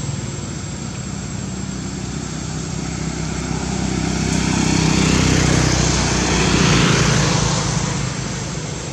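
A motor engine droning steadily, growing louder through the middle and fading again near the end, like a vehicle or aircraft passing.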